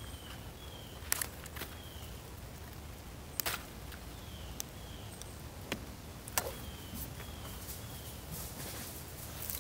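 Leaves and twigs crackling and snapping in a few sharp clicks as a leafy stem is handled and stripped over dry leaf litter. A bird gives short falling chirps in groups of two or three throughout.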